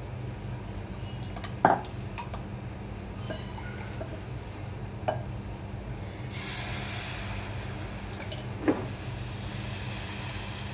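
Batter poured into a hot nonstick frying pan starts sizzling with a soft hiss about six seconds in, over a steady low hum, with three light clicks of the utensil against the pan.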